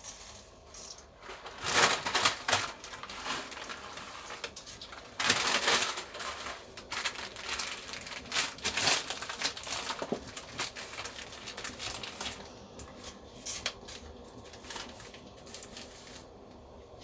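Dry spaghetti strands clattering and clicking against each other and a stainless steel pot as handfuls are put in, in several louder bursts, with a plastic pasta packet crinkling.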